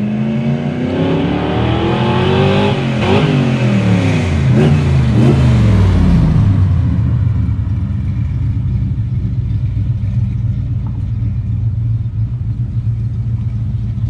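A car engine picking up speed, its pitch rising over the first few seconds, then running at a steady low pitch for the rest.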